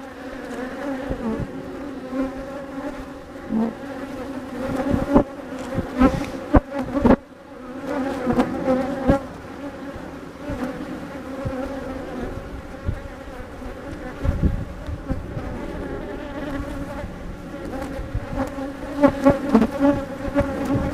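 Many honeybees from a defensive, Africanized colony buzzing in flight close to the microphone, a steady hum, with several sharp knocks about five to seven seconds in.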